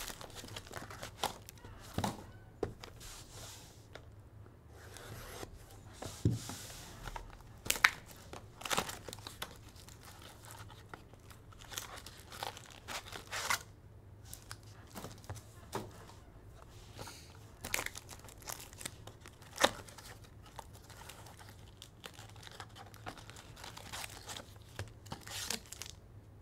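Foil-wrapped trading card packs being torn open and crinkled by hand, with the cards handled: scattered sharp tears and rustles, the loudest about 8 and 19 seconds in.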